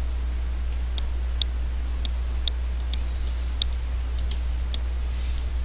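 Computer mouse clicking, about ten short, sharp clicks at uneven intervals, over a steady low electrical hum.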